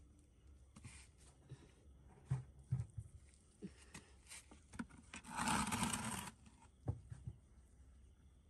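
Paddy straw mushrooms being picked by hand from a straw bed: scattered soft snaps, taps and rustles of straw. About five seconds in there is a louder burst of rustling or scraping lasting about a second.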